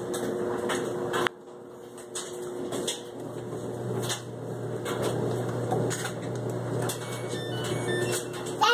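Front-loading washing machine being switched on: a steady low hum sets in about three seconds in, with clicks and a knock from the buttons and handling, and a few short faint beeps near the end.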